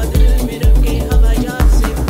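Afro house dance music in a continuous DJ mix, with a steady four-on-the-floor kick drum at about two beats a second under layered percussion and synth.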